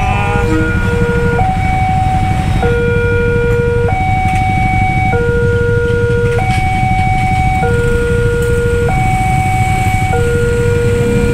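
Railway level-crossing warning signal sounding: an electronic two-tone alarm switching between a lower and a higher tone about every one and a quarter seconds, warning that a train is passing. A steady low rumble runs beneath it.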